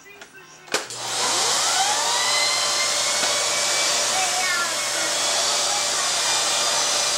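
Bagless cyclone vacuum cleaner switched on with a click about a second in, its motor whine rising as it spins up, then running loudly and steadily with its air-driven turbo brush head.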